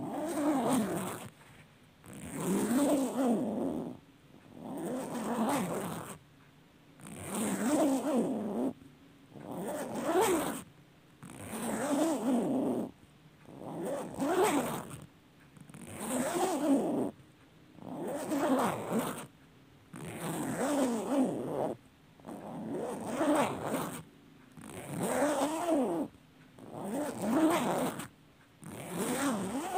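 A zipper pulled over and over in long zips, about one every two seconds. The pitch of each zip rises and falls with the speed of the pull.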